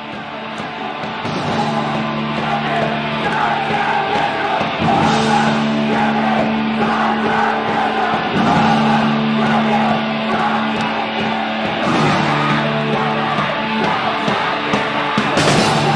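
A punk rock band playing loudly, with held chords that change every few seconds over drums, fading in during the first couple of seconds.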